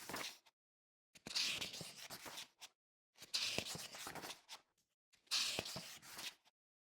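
Book pages being turned one at a time: three crisp papery flips, each a sharp swish followed by a short crackle of paper, about two seconds apart, with the end of another flip right at the start.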